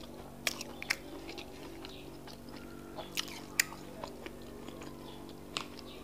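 Close-miked chewing of akara bean fritters soaked in custard, with several sharp wet mouth clicks and smacks over a faint steady hum.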